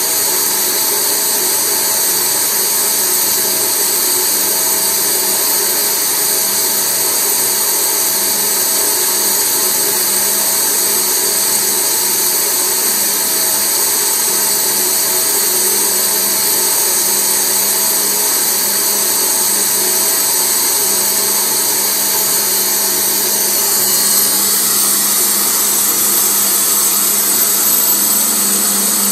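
Jewellery bench polishing motor running steadily with a high whine while amber is polished on its spinning wheel; its tone shifts slightly near the end.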